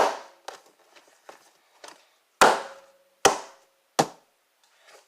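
Slime being aggressively slapped against and pulled up off a hard counter, making a run of sharp smacks: a loud one at the start, three more between about two and a half and four seconds in, and fainter ones between.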